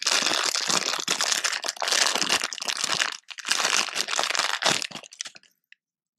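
Clear plastic bag crinkling as hands unwrap a baitcaster reel spool from it, in crackling bursts with a short break about three seconds in, stopping about five seconds in.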